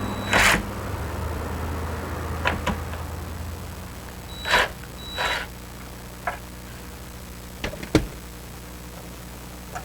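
Scattered clicks and light knocks of hand tools and a plastic latch cover being handled while the cover's last fastener is undone, about eight in all at uneven spacing. A low steady hum runs under the first few seconds and then fades.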